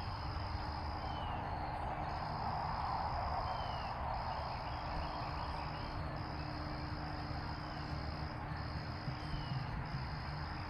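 Insects trilling in long, even phrases of about one and a half seconds with short breaks between them, over a steady background hiss and low rumble. A few short falling bird chirps.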